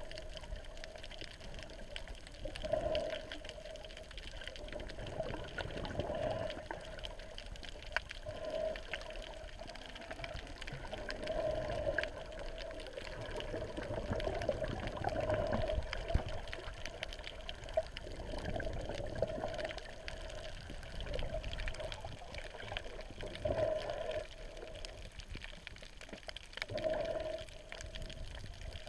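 Water sloshing and gurgling, swelling in irregular surges every couple of seconds.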